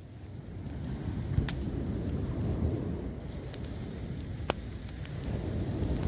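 Driftwood campfire crackling with fine ticks and two sharp pops, about a second and a half in and again about four and a half seconds in, over a low rumble of surf that swells up in the first second.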